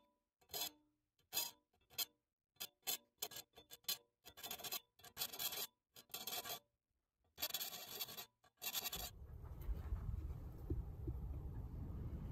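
Hand file rasping across the teeth of a rusty hand saw held in a vise, in a string of short strokes with silent gaps between them, the strokes coming longer and closer together later on. About nine seconds in the strokes stop and a steady low rumble takes over.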